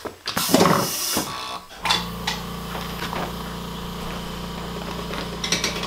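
Fusion heat press being opened: a noisy rush lasting about a second and a half as the heated upper platen is lifted off the pressed shirt and swung aside. A steady machine hum follows and carries on.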